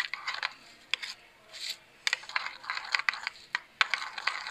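A spoon stirring thick ketchup-and-mustard sauce in a bowl: irregular scraping strokes with sharp clicks where it knocks against the bowl's side.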